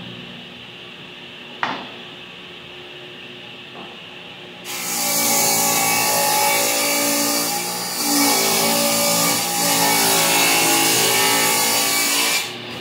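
Table saw ripping a wooden board lengthwise: a loud cut starts about five seconds in, eases briefly partway through, and ends just before the close. Before the cut there is a steady machine hum and a single sharp knock about two seconds in.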